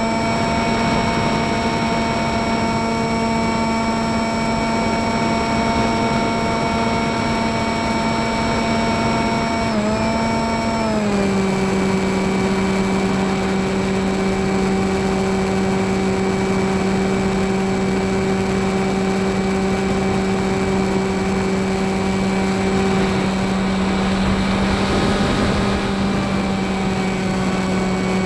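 Model airplane's motor and propeller whining steadily, picked up by the onboard camera with wind rushing over it. About ten seconds in the motor slows and its pitch drops a step, then holds steady; a brief rush of wind swells near the end.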